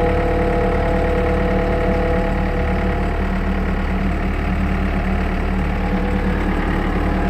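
Skid steer loader's engine running steadily, heard from the operator's seat, with a steady whine that fades out about three seconds in.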